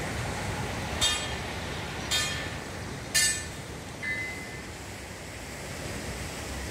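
Steady rush of wind and sea surf. Three short, harsh calls about a second apart cut across it, the third the loudest, followed by a brief thin high tone.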